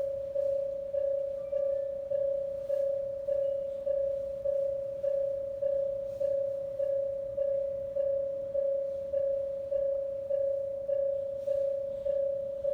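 Japanese railway level-crossing alarm at an in-station crossing ringing its distinctive warning: a single bell-like tone struck a little under twice a second, each strike fading before the next.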